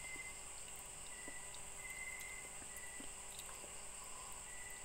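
Faint, steady chirring of insects, with a few soft, small clicks of a spoon against a bowl during eating.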